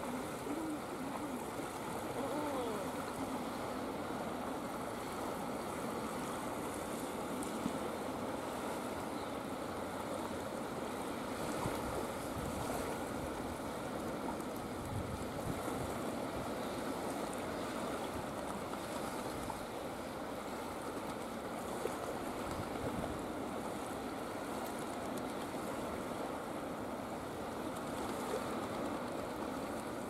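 Steady wash of choppy estuary water and wind, with the soft rising cooing calls of a raft of common eiders clearest in the first few seconds.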